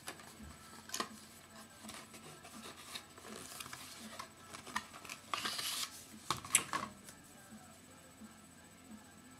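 Paper inserts and packaging being rustled and handled, with scattered small clicks, a louder rustle about five and a half seconds in and a sharp click just after.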